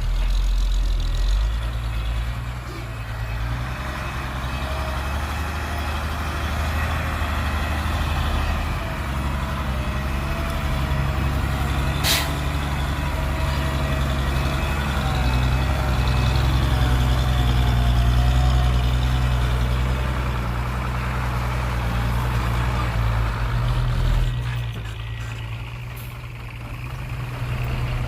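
Heavy diesel engine of earthmoving equipment running steadily with a deep, low drone, with one sharp click about twelve seconds in. The engine eases off near the end.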